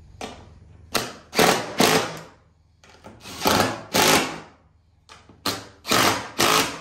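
DeWalt cordless driver run in about ten short bursts, turning the bolts in the mounting bracket of a golf-cart seat bottom.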